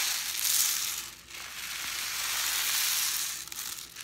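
Homemade rain stick (a paper towel roll holding half a cup of rice and a coiled aluminum foil insert) tipped over so the rice trickles down through the coil with a steady hiss. It is tipped twice: a short pour, then a longer one starting about a second in.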